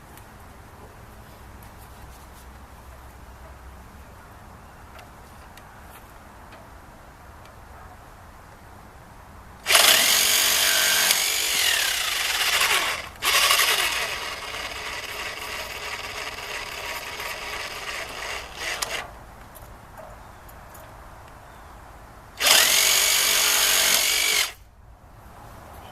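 Power tool cutting smaller PVC pipe, two runs of the motor. About ten seconds in it starts loud for a few seconds with its pitch sagging and recovering as it bites the pipe, then runs quieter for several seconds before stopping. A second short, loud cut comes near the end.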